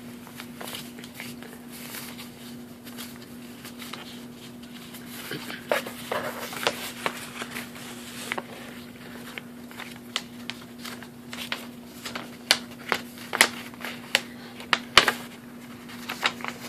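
Printed paper sheets being handled and unfolded close to the microphone: rustling and crinkling with many sharp crackles, busier and louder in the second half. A steady low hum runs beneath.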